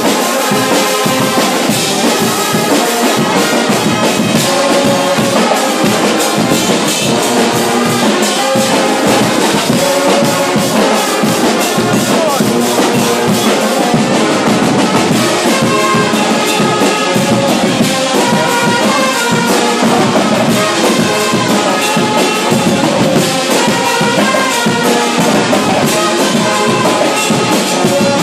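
Brass band with drums playing a tune, trumpets and trombones holding notes over the percussion.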